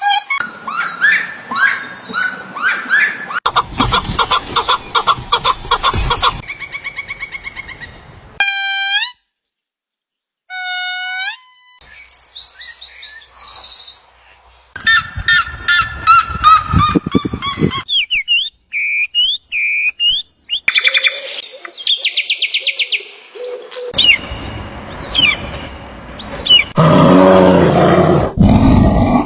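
A string of short animal-call recordings spliced one after another, mostly bird calls and chirps, with a brief silent gap about a third of the way through.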